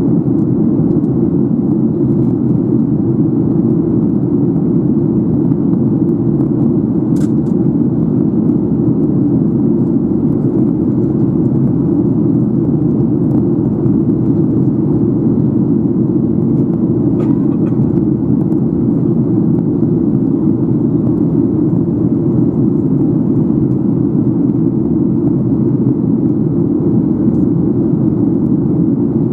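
Steady cabin noise inside a Boeing 737-800 on approach: its CFM56 jet engines and the airflow over the fuselage make a loud, even low rush. Two faint clicks come through, at about a quarter and again past halfway through.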